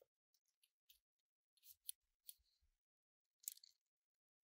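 Faint, scattered small clicks and light scrapes from hands handling the metal chassis and wiring of an opened cassette deck, the most distinct about two seconds in and a little after three seconds.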